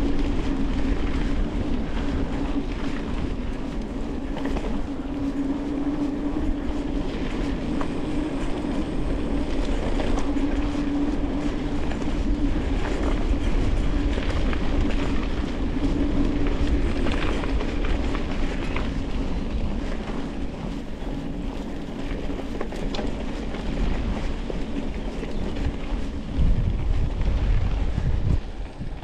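Mountain bike rolling fast along a woodland trail: a continuous rumble of tyres on rough ground with rattling clicks from the bike over bumps and a steady hum underneath, and a louder jolt near the end.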